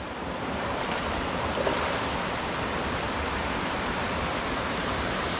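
Steady rushing of a jungle waterfall pouring into its pool.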